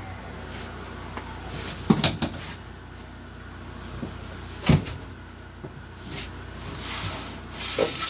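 Knocks and thumps from a camper dinette booth's seat boards and cushions being handled and shifted, with two sharp knocks about two seconds in, a louder thump about halfway, and rustling near the end.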